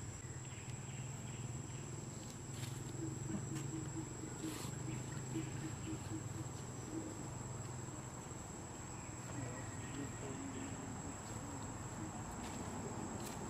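Steady, high-pitched drone of insects such as crickets or cicadas, with a low hum underneath and a few faint clicks.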